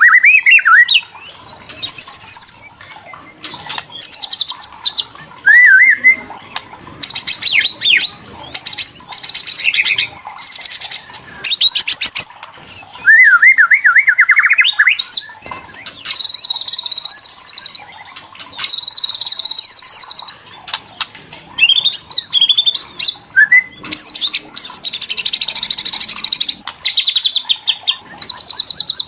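White-rumped shama (murai batu) singing in quick-fire phrases: fast rattling 'kretekan' strokes alternating with whistled, warbling notes that glide up and down. The rattle is the agitated call used to provoke other shamas into singing.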